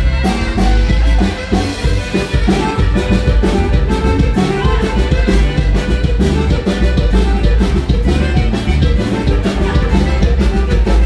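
Live norteño band with saxophone playing a huapango, with a steady beat of strong bass and drums.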